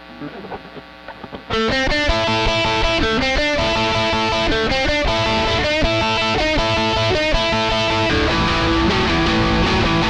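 Squier Telecaster with Fender Tex-Mex pickups, both pickups on, played through a SansAmp GT2 on its high-gain setting and miked off-axis: a distorted riff comes in about a second and a half in, and near the end it moves to longer, ringing notes.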